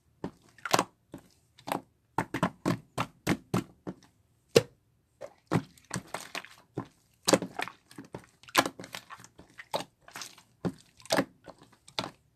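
A series of sharp knocks and taps at irregular spacing, some coming in quick runs of two or three.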